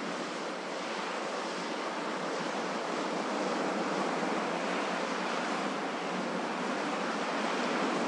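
Ocean surf washing onto a beach: a continuous rush of waves with no distinct breaks, swelling slowly in loudness and easing off.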